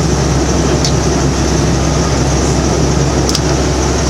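Amphibious duck boat's engine running steadily while the boat is afloat, an even low drone heard from inside the open canopied cabin.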